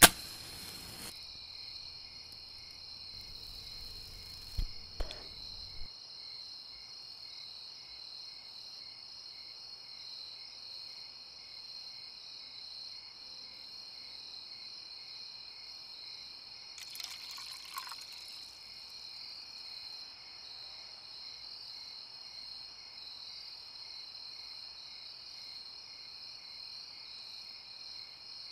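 Crickets chirping in a steady, high, even chorus. A few short clicks and rustles come in the first few seconds, and a brief rustle a little past the middle.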